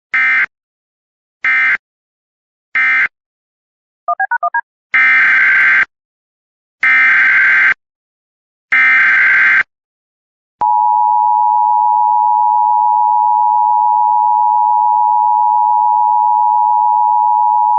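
Emergency Alert System signalling. First come three short end-of-message data bursts and a quick flutter of beeps, then three longer SAME header data bursts with their buzzy digital warble. About ten and a half seconds in, the steady two-tone EAS attention signal starts and holds for the rest.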